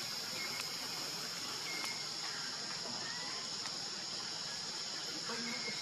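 Steady high-pitched insect chorus, with a few short faint chirps over it.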